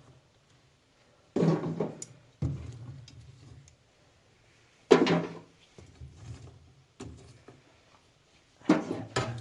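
A series of separate knocks and clunks, about six of them, each starting sharply and dying away, with quiet gaps between.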